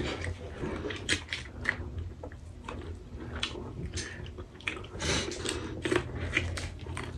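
Close-miked eating: a person biting and chewing food, with irregular wet clicks and small crunches.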